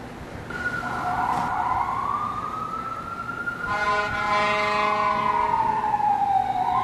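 Emergency-vehicle siren wailing: one slow rise in pitch over about three seconds, an equally slow fall, then the start of another rise. A steady horn blast sounds over it for about two seconds in the middle.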